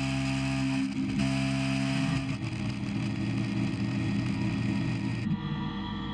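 Maho MH 600 E CNC mill running, its spindle turning a tool that cuts into a clamped metal block: a steady machine hum that turns rougher about two seconds in, with abrupt changes about a second in and about five seconds in.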